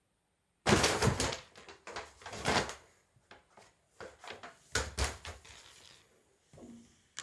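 Paper bag crackling and rustling as a cat paws at it and drags it across the floor. The rustling starts suddenly under a second in, comes in several bursts, loudest near the start and again at about two and a half seconds, and dies away after about five seconds.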